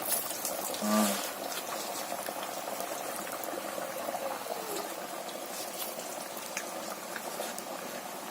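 Batuk fritters sizzling steadily as they fry in hot oil, with faint small crackles.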